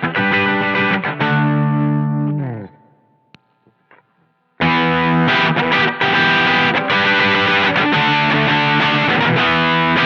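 Electric guitar played through an Electro-Harmonix Soul POG octave and overdrive pedal, distorted chords. A held chord fades away about two and a half seconds in, followed by a short near-silent gap with a couple of faint clicks, then dense playing starts again.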